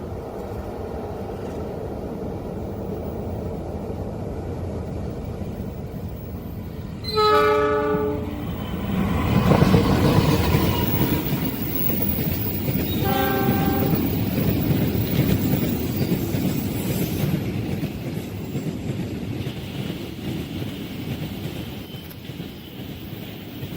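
Train horn sounding a loud blast about a second long, then the train passing close with heavy rumbling and clickety-clack of the wheels, a second short horn blast in the middle of the pass, and the noise slowly fading.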